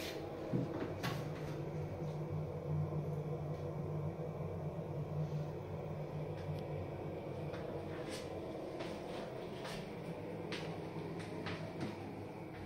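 Steady low hum of room noise with scattered light knocks and clicks from footsteps and from handling of the phone that is filming.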